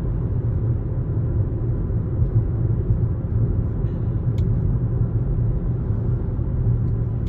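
Steady low road and drivetrain rumble inside the cabin of a 2021 Toyota RAV4 Hybrid on the move, with one faint sharp click about four seconds in.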